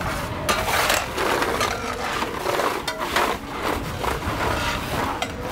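Snow shovel scraping and chipping at icy slush on a pavement, in repeated irregular strokes.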